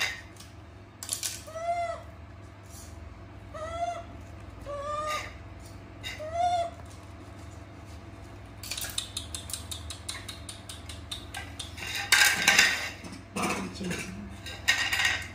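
Young macaques giving short squeaky calls, five in the first half, each rising then falling in pitch. In the second half come a quick run of clicks and then clattering as the dragon fruit is cut and handled.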